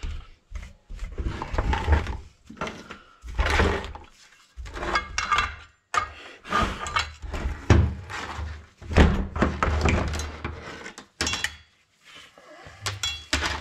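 Irregular knocks and clatter of a chainsaw's metal parts and guide bar being handled and set down on a steel workbench during reassembly.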